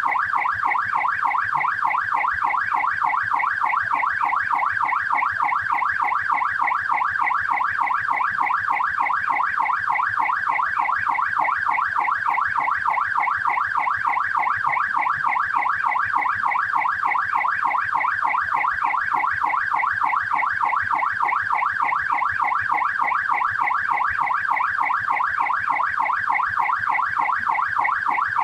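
Australian police car siren sounding in yelp mode: a fast, steady, rapidly repeating up-and-down wail that carries on unchanged.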